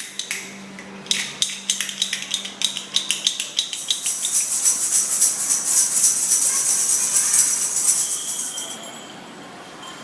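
Quick, irregular clicks and taps, followed from about four seconds in by a dense, fast, high-pitched rattle like a shaker being shaken. The rattle stops about a second before the end.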